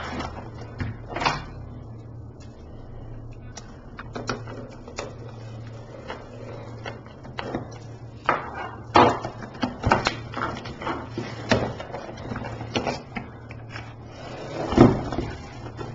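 Hands handling and opening a cardboard box: scattered scrapes, taps and rustles of cardboard, loudest about nine seconds in and again near the end, over a low steady hum.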